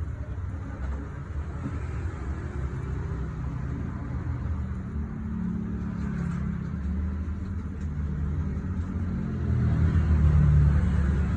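A steady low rumble that swells louder near the end, with no sharp shots or clicks.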